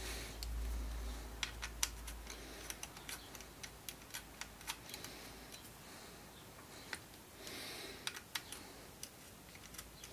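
Irregular small clicks and taps of metal and plastic air-rifle parts being handled and fitted together during reassembly of a Gamo Swarm, with a low handling rumble over the first second or two.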